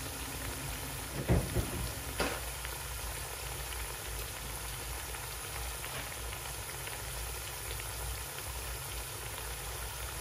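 Halved plantains frying in shallow oil in a frying pan: a steady sizzle and bubbling. A few soft knocks sound a second or two in.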